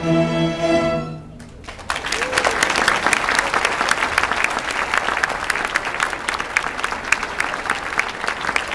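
A fourth-grade string orchestra holds its final chord, which stops about a second in; after a brief pause the audience breaks into steady applause.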